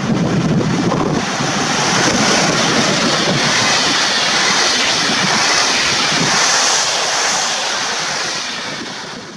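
Intercity passenger train hauled by an EP08 electric locomotive passing through at speed without stopping: a loud, steady rush of coaches and wheels on the rails that fades near the end.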